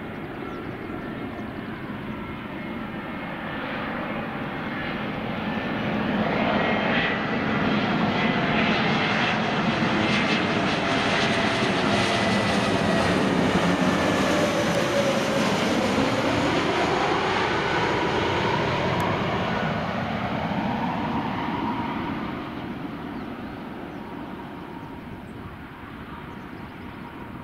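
Airbus A320neo jet airliner on final approach with landing gear down, passing low overhead. Its engine noise swells and then fades as it moves away, with a falling whine as it goes past.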